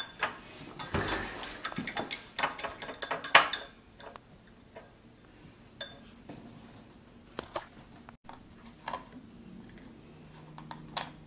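Small hard clinks and knocks of plastic paint pots and paintbrushes handled on a glass tabletop: a busy clatter for the first four seconds or so, then a few scattered clicks.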